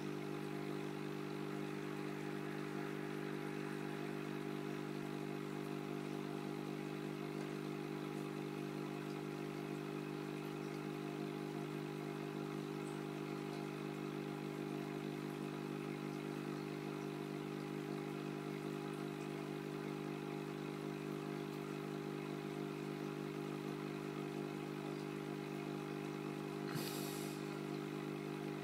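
Steady low electrical hum of running aquarium equipment, with a single brief click near the end.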